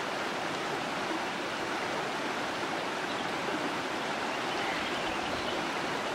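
Flowing river water: a steady, even rush.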